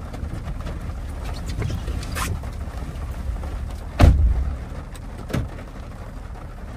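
SUV driver's door opening with a latch click about two seconds in, then slamming shut with a heavy thump about four seconds in, followed by a smaller knock, over a steady low rumble inside the cabin.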